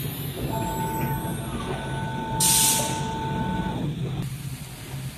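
CNC router spindle running with its bit cutting door-panel grooves into an MDF sheet: a steady whine over a low machine hum, with one brief loud hiss about two and a half seconds in.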